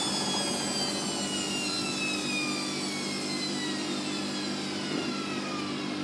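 Hoover DXA 48W3/1-80 washing machine running down at the end of its spin cycle: the motor and drum give a whine that falls steadily in pitch as the drum slows, over a steady low hum.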